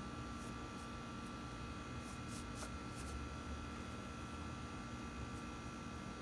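Steady electrical hum and hiss with a few faint light clicks and taps in the first half, from parts being handled on a workbench.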